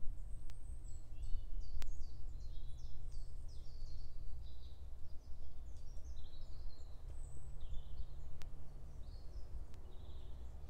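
Woodland birdsong: short, high chirping notes in quick runs throughout, over a steady low rumble, with a few faint clicks.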